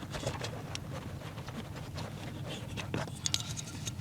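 Light irregular clicking and rubbing as a thermal turn-signal flasher relay is worked out of its socket, with a sharper click about three seconds in.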